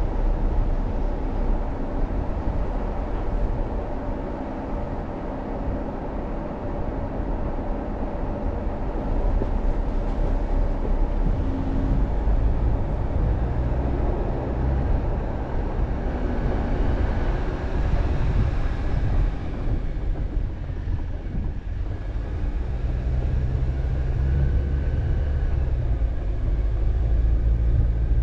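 A vehicle driving, giving a steady low rumble of engine and road noise that grows a little louder near the end.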